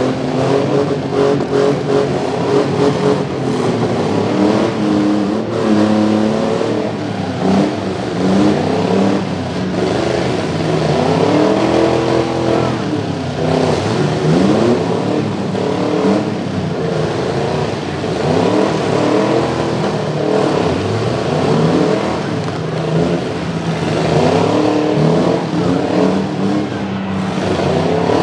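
Demolition derby pickup truck engines revving hard over and over, the pitch climbing and falling again and again, as the locked trucks push against each other with their wheels spinning.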